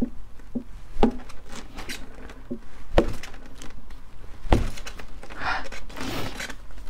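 A bare hand striking a whole watermelon's rind: three sharp thuds about one, three and four and a half seconds in, the last the deepest, with lighter knocks between. Near the end, a breathy hiss.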